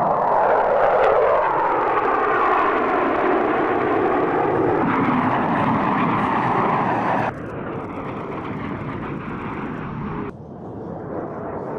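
Jet noise from F-16 fighter jets flying past, its pitch sliding down as they go by. The sound cuts abruptly to a quieter jet rumble about seven seconds in and shifts again near the end.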